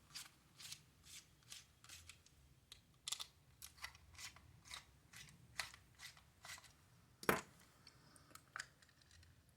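Small precision Phillips screwdriver backing screws out of a hard plastic toy: a faint series of short clicks and scrapes, with one louder knock about seven seconds in.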